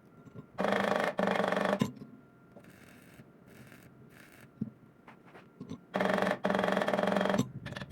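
Wire brush scrubbing slag off a steel weld bead in two bursts of rough strokes, one about a second in and one near the end.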